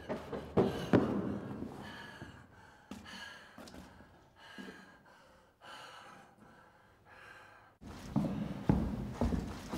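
A person breathing hard in a string of gasping breaths, about six or seven of them. The breaths are bracketed by quick, louder thumps near the start and again from near the end.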